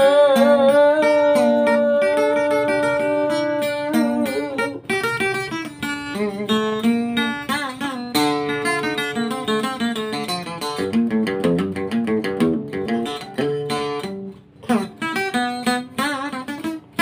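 Solo acoustic guitar playing a cải lương melody, picked note by note, with wavering, bent notes near the start and quick runs of notes in the middle.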